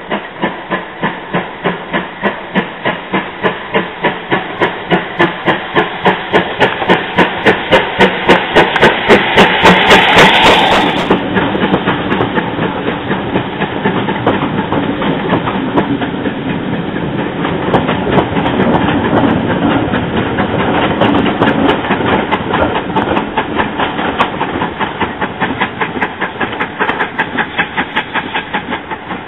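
Steam locomotive working a passenger train, its chuffing exhaust beating at about three a second and growing louder until it passes right below about ten seconds in. The coaches then roll past with a rumbling clatter of wheels on rail joints while the exhaust beats carry on, fading away.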